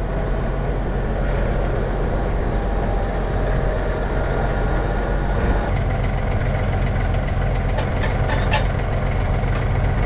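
Case IH Magnum tractor's diesel engine running as the tractor reverses up to a manure wagon hitch. The engine gets louder about six seconds in, and a few sharp knocks come near the end.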